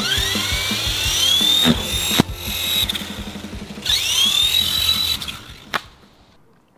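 Small electric motor of a toy RC helicopter spinning up twice, each time a rising whine that then holds steady, over background music. A sharp bang about two seconds in, as the balloon bursts.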